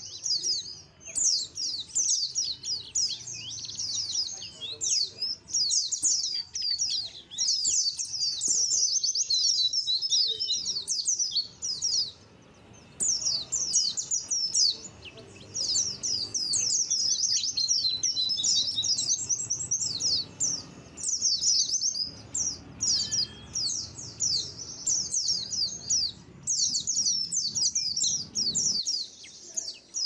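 A flock of white-eyes (pleci) chirping and twittering together in rapid, overlapping high notes, with a brief lull about twelve seconds in.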